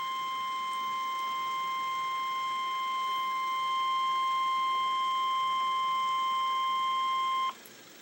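Weather-radio emergency alert warning tone: a single steady, unbroken tone held for several seconds, which cuts off suddenly about seven and a half seconds in and leaves a faint hiss. It is the attention signal that comes before a severe thunderstorm warning is read.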